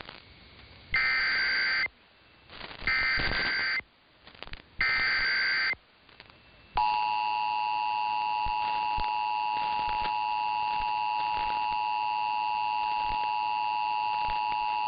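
Emergency Alert System header: three bursts of SAME digital data tones, each about a second long and a second apart. About seven seconds in, the steady two-tone EAS attention signal (853 and 960 Hz) begins, signalling that a new alert message follows.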